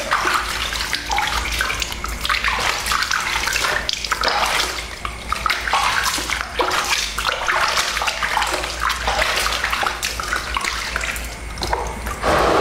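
Water splashing and trickling in a plastic basin as hands scoop it up and pour it over a baby monkey being bathed, in an irregular run of small splashes.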